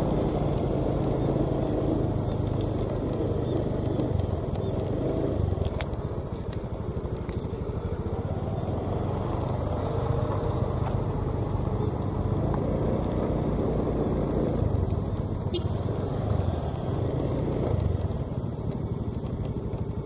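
Small motor scooter engine running steadily at low speed while riding, heard up close, with a few light clicks.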